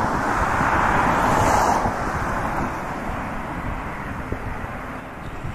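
Airbus A350-900 jet airliner on final approach with gear down: a steady rushing of its Rolls-Royce Trent XWB engines and airframe over a low rumble, strongest for the first two seconds, then easing off.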